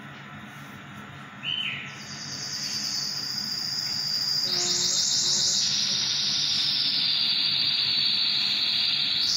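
High-pitched, rapidly pulsing insect trilling, cicada- or cricket-like, that starts about two seconds in after a brief high chirp and grows louder, stepping up in pitch about halfway through.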